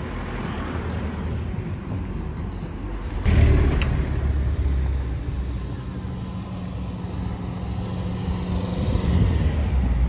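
Road sounds heard from a moving bicycle: a steady low rumble, with a car passing close by about three seconds in, making a louder rumble that fades over the next few seconds.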